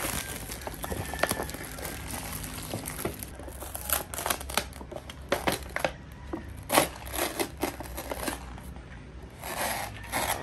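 Plastic shrink-wrap crinkling and crackling in irregular bursts as it is torn off an instant cup ramen, then the cup's lid being peeled back with a longer rustle near the end.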